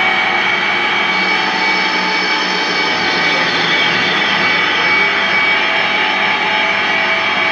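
Loud, unbroken wall of amplified drone from a band playing live: many held tones over a dense, noisy wash, with no beat or breaks.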